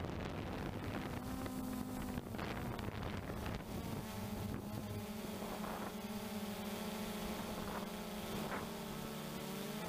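Blade 350 QX3 quadcopter's four brushless motors and propellers, heard from the onboard camera, with a steady hum and whine whose pitch shifts slightly as the motors adjust. Wind buffets the microphone during the first few seconds.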